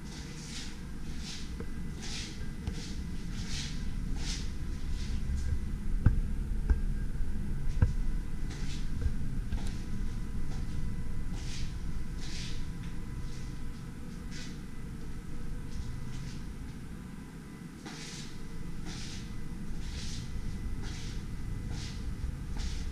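Footsteps scuffing on a hard floor at an easy walking pace, about one and a half a second, pausing for a few seconds midway, over low rumbling handling noise from a handheld camera. Two sharp clicks come about six and eight seconds in, and a faint steady high tone runs underneath.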